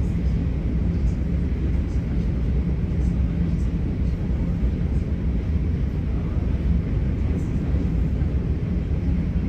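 Inside a moving passenger train: a steady low rumble of the wheels running on the rails, with occasional faint ticks.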